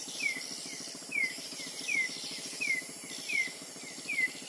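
Night-time animal calls: a short falling chirp repeats about every three-quarters of a second, each followed by a fainter second chirp, over a fast low trill and a steady high hiss.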